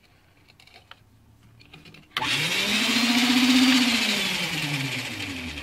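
Built-in countertop blender motor switched on by its dial, running with no jar fitted. It starts suddenly about two seconds in as a whine that rises in pitch, then slows and falls in pitch near the end.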